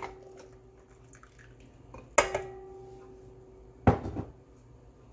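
A glass measuring cup knocking against a stainless steel mixing bowl, three times. After the second knock the bowl rings with a steady tone for over a second. The last knock, near the end, is the loudest.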